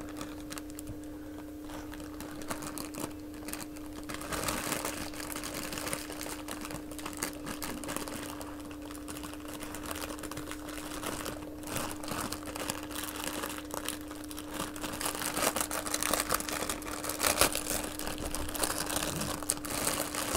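Clear plastic packaging bag crinkling and rustling as a plush toy is worked out of it, in dense irregular crackles that start a couple of seconds in and are heaviest in the second half. A steady faint hum runs underneath.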